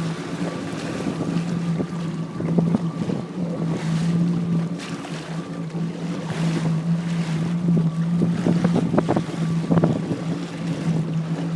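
Jetski engine running at a steady low speed, a constant hum, with wind buffeting the microphone and water splashing now and then.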